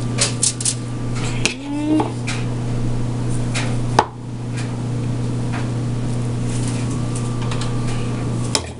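A metal spoon clicking and scraping as a cheese mixture is spread onto toast on a foil-lined baking sheet, with a quick run of light ticks in the first second and a few single clicks later, over a steady low hum.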